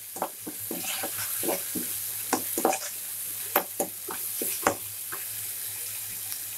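A slotted spatula scraping and knocking against a frying pan at about two or three strokes a second as it stirs onion and ground tomato frying in oil, over a steady sizzle.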